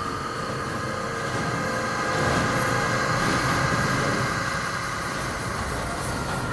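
Electroacoustic music: a dense, steady, machine-like noise texture with a held high tone over it, swelling slightly about two seconds in.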